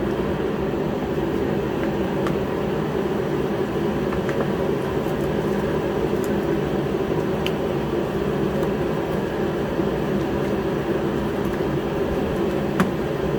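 Steady hum of a Ford F-150's heater running, with a few faint clicks from plastic cowl trim being pried up near the windshield.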